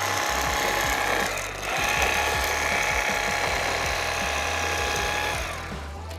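Electric fillet knife motor running while filleting crappie: a steady motor whine that stops briefly about a second and a half in, then runs again for about four seconds and winds down near the end.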